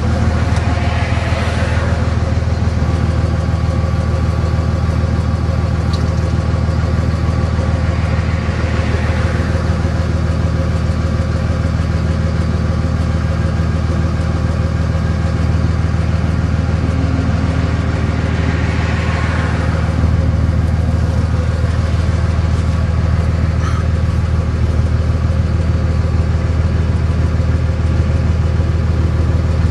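A vehicle engine running steadily as a low hum. Three short swells of rushing noise rise and fade over it: near the start, about a third of the way in, and about two-thirds in.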